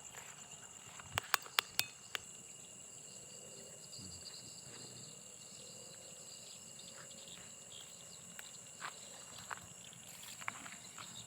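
Insects, crickets, trilling steadily at a high pitch, with a quick run of sharp clicks a little over a second in.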